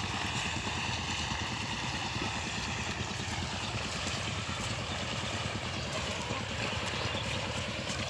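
An engine running steadily with an even low drone and no change in speed.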